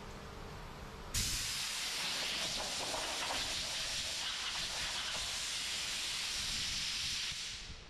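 Compressed air hissing from a handheld air blow gun on a shop air hose, blowing sanding dust off the body filler on a car's quarter panel. The hiss starts suddenly about a second in, holds steady, and fades away near the end.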